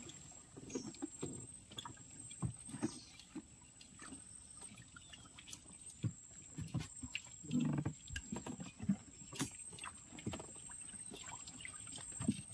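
Scattered light knocks and clicks, with a few low thuds, from a baited crab line being hauled by hand into a small boat.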